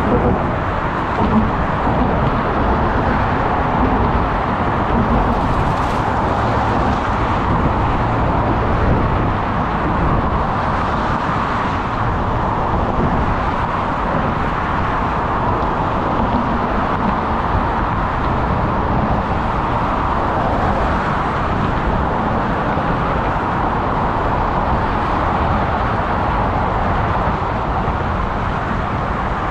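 Steady rush of wind on the camera's microphone while cycling, mixed with the hum of motor traffic passing alongside.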